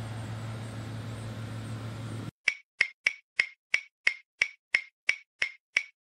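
A steady hum from the fan in the RV absorption fridge's back compartment, with a house air conditioner running behind it, for about two seconds. The hum then cuts off dead to silence, broken by a sharp, even clock ticking, about three ticks a second.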